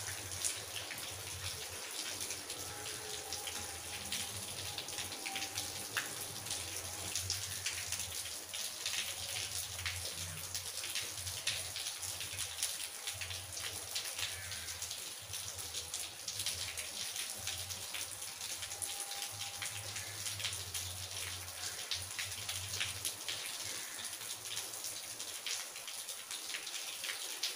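Rain falling: a steady patter of many small drops.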